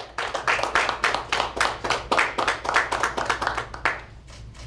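A small group applauding, claps dense for about four seconds, then dying away.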